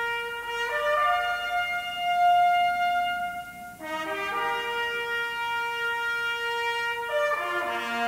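Music with sustained brass chords played back through Gryphon Pantheon loudspeakers. The long held chords change about every three seconds, with a short dip in loudness between two of them.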